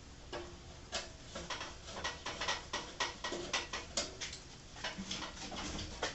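A quick irregular run of small sharp clicks and ticks, several a second, from a screwdriver working Phillips screws out of the table saw's metal parts.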